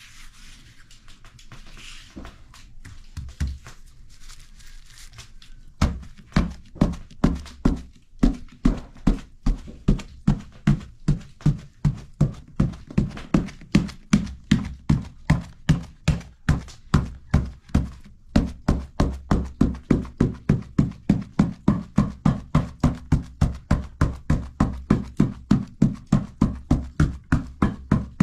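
Fingertips docking a large round of bread dough on a wooden board: dull thuds at about three a second, starting about six seconds in, with a short break after about eighteen seconds. Before that, soft rubbing of hands smoothing the floured dough.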